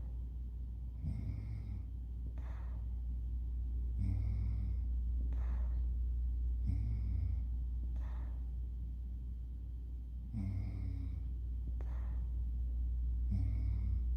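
Snoring in slow, regular breaths, one about every three seconds: each breath is a rattling snore followed by a breathy puff of air, five times over, above a steady low hum.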